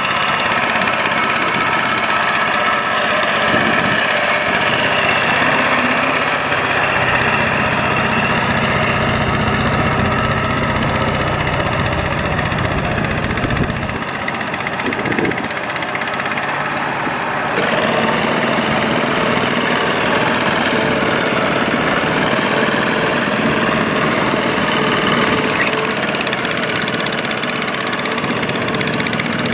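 Tractor engine running steadily under load, with an abrupt change in its tone a little over halfway through.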